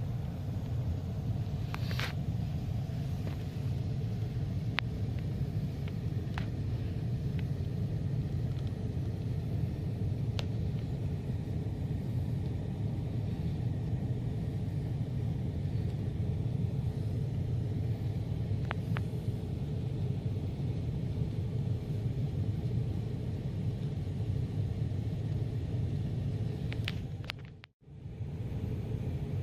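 Steady low rumble of an HVAC air handler running, with a few faint clicks and taps. The sound drops out briefly near the end.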